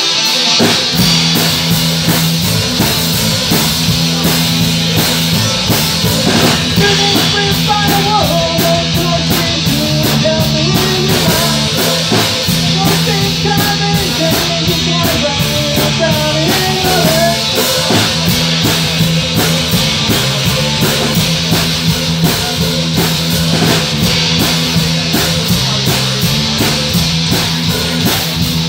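Live heavy rock band playing: distorted electric guitars over a drum kit, with a wavering lead line in the middle of the passage.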